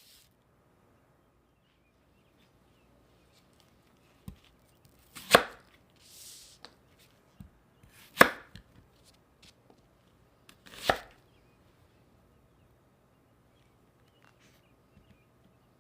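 Knife cutting on a cutting board: three loud chops about three seconds apart, with lighter taps and handling knocks in between.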